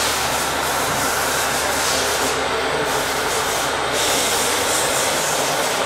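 Radio-controlled model Liebherr crawler dozer running as it pushes sand with its blade: a steady mechanical noise from its drive and tracks, with a low hum underneath that drops out near the end.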